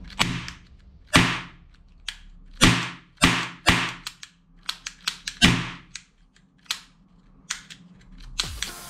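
Small toy revolver being fired: about six sharp bangs at irregular intervals, each trailing off briefly, with lighter clicks of the trigger and hammer between them.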